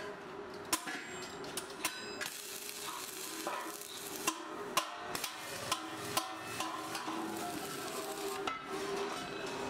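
Irregular sharp clinks and knocks of metalworking, a few a second, some ringing briefly, over a steady hum.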